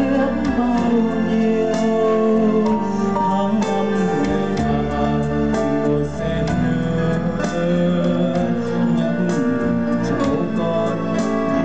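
A live band playing a song with keyboards, sung by a man into a microphone.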